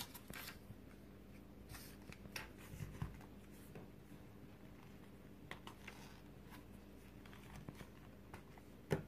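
Small cards and a phone being handled on a table: scattered faint clicks, taps and rustles, with one sharper click near the end.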